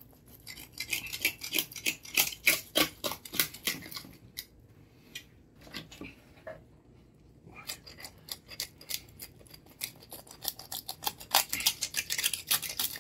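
Knife sawing through the crisp, crackled skin of a roast porchetta: dense runs of sharp crunching crackles, with a quieter lull from about four to seven seconds in.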